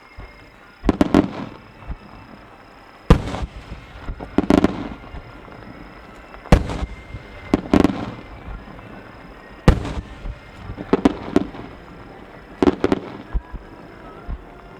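Aerial firework shells bursting in a starmine barrage: a string of about nine loud booms, some in quick pairs, each followed by brief crackling, spaced one to three seconds apart.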